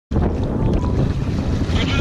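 Wind buffeting the microphone of a camera on a dragon boat's bow: a steady low rumble over open water.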